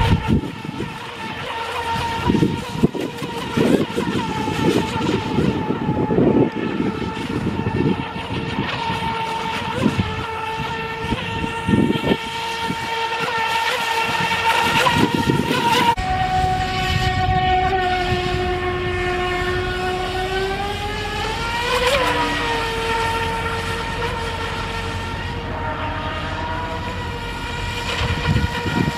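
Feilun FT011 4S electric RC speedboat running at speed, a steady high whine from its motor and propeller, with gusty low rumbling in the first half. A little past halfway the sound changes abruptly, and then the whine's pitch slides down and sweeps sharply up about three-quarters of the way through.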